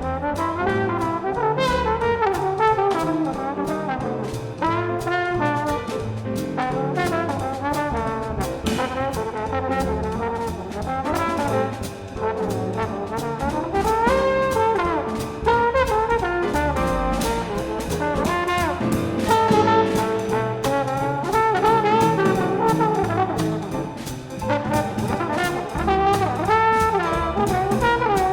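Jazz quintet playing live: trombone to the fore with saxophone, over piano, bass and drum kit keeping a steady quick beat.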